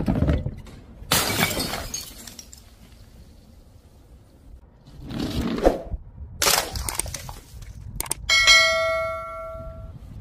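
A run of crashes and breaking sounds as objects rolled down a wooden chute hit breakable things on a tiled floor, about five separate impacts. About eight seconds in, a clear ringing with several tones follows a hit and fades over about two seconds.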